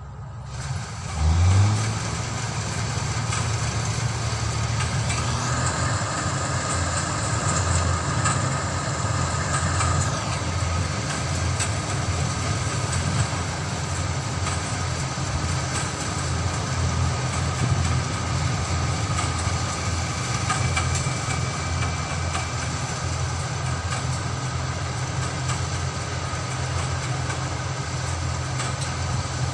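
New Holland combine harvester's diesel engine and threshing machinery running as it picks up already-cut rice. The engine rises in pitch about a second in, then runs steadily.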